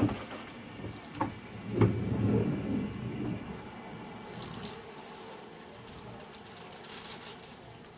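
Water turned on into an RO/DI filter unit for its flush: a few clicks, then a rush of water that settles into a steady hiss of water running through the tubing and housings.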